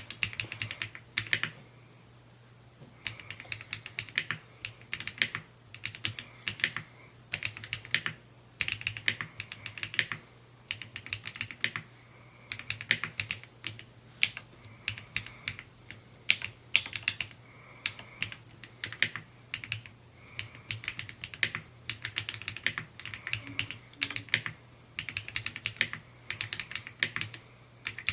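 Evo80 mechanical keyboard being typed on: bursts of rapid keystroke clicks and clacks with short pauses between phrases.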